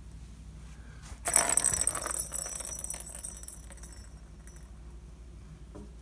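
Plastic balls rattling and rolling around the tracks of a three-tier cat ball-track toy as a cat bats at them. The rattle starts suddenly about a second in, is loudest briefly, then dies away over a few seconds.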